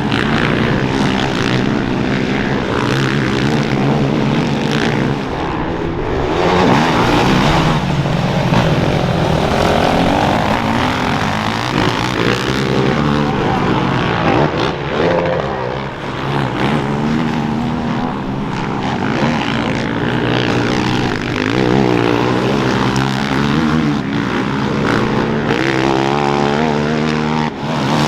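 Several motocross race engines running at once, each rising and falling in pitch as the riders rev, accelerate and shift, overlapping one another.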